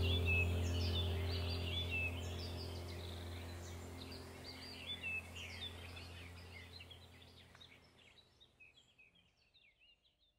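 Many birds chirping over a low steady hum, the whole sound fading out gradually in the second half.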